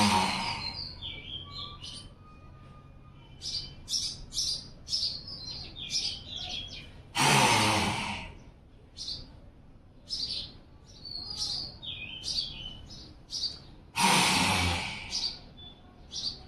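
A woman's forceful, breathy roaring exhalations, three of them about seven seconds apart, each lasting about a second: the lion's roar of simhasana (lion pose), breathed out with the tongue out. Birds chirp in short calls throughout.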